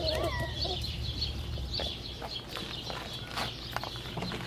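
Chickens clucking at a low level, with a short gliding call near the start and scattered light clicks.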